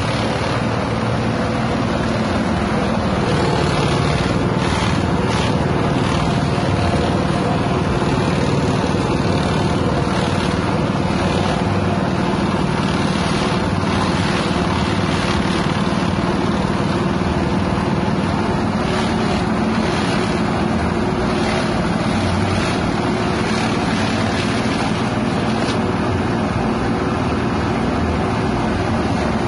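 Small single-cylinder petrol engine running steadily at speed, driving a banana-frond chopper that is shredding green banana fronds into chaff.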